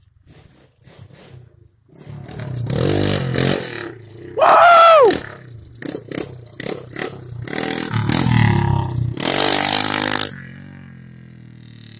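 Straight-piped 110cc Chinese pit bike's single-cylinder four-stroke engine being ridden: it revs up and down repeatedly through the gears, loudest near the end, then drops to a lower, steady note as the bike rides away. A short, loud, high cry that rises and falls cuts in over the engine a few seconds in.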